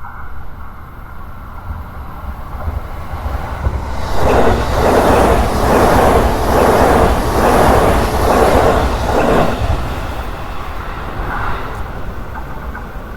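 A single JR Freight electric locomotive running light, with no wagons, past a level crossing. Its rumble builds, then comes a loud passage of about six seconds with a rhythmic clatter roughly once a second, and it fades away.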